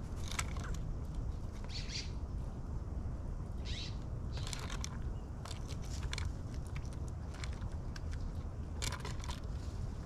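Black-billed magpies pecking and picking through peanuts and seed in a tray feeder: scattered short clicks and scratchy scrapes, a cluster about halfway through and another near the end, over a steady low rumble.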